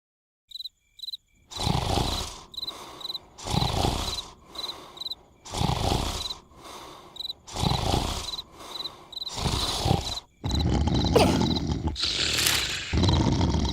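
Cartoon snoring: a rough, rumbling snore about every two seconds, with cricket chirps between the snores. About ten seconds in, the snoring gives way to a louder unbroken rough sound with a few sharp hits.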